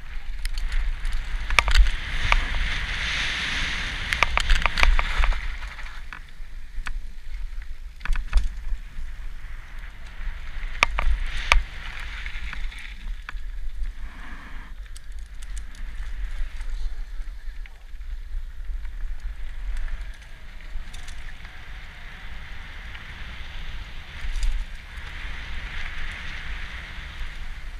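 Mountain bike rolling down a gravel trail: tyres crunching over loose stones, with many sharp clicks and rattles from the bike over bumps. A steady low wind rumble sits on the helmet camera's microphone.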